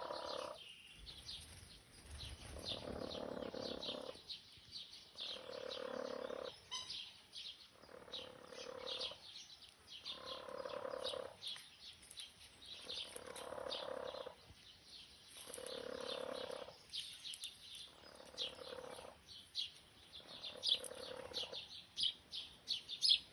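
A resting domestic hen makes a snore-like sound about every two and a half seconds, each one lasting about a second. The owners take it for a sign of complete relaxation. Small birds chirp busily all through it.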